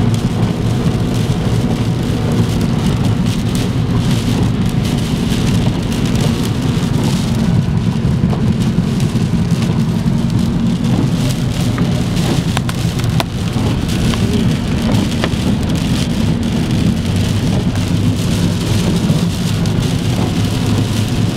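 Rain and wet tyre noise heard from inside a moving car's cabin on a wet freeway: a steady hiss of rain and spray over a constant low road rumble, with fine drop clicks throughout.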